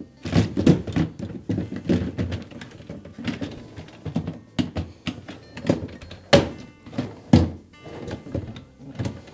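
Plastic freezer baskets knocking and clicking against the metal drawer slide rails as they are set in place, the mounting tabs snapping in. A series of hollow thunks, two louder ones about a second apart in the second half.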